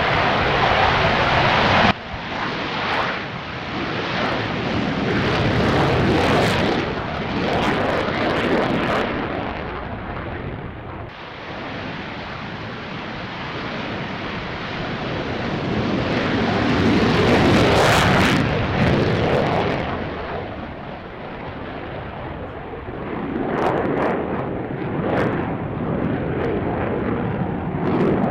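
Aircraft engine roar from planes flying past, swelling and fading several times, loudest about a quarter of the way in and again past the middle. It changes abruptly twice where the footage is cut.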